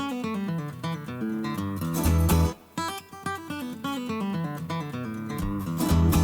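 Background music: acoustic guitar playing plucked and strummed notes over a bass beat.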